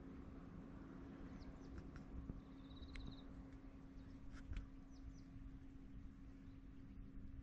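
Quiet rural outdoor ambience with scattered short high bird chirps and a brief rapid trill about two and a half seconds in, over a low steady hum.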